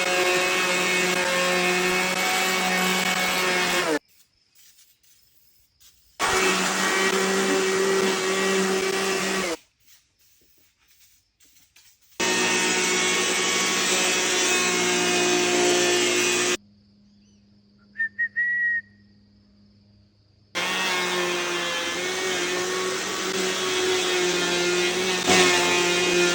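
A handheld power tool running steadily as it works over a wooden beam, its hum cut off three times by short near-silent gaps.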